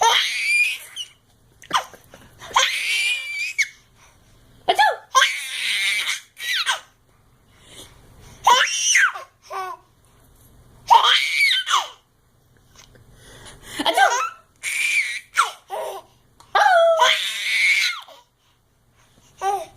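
A baby laughing in repeated high-pitched squealing bursts, one every second or two with short pauses between, laughing at someone's sneezes.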